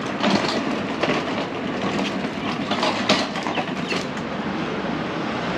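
Hard little wheels of a small trolley rattling and clattering steadily as it is pushed over pavement.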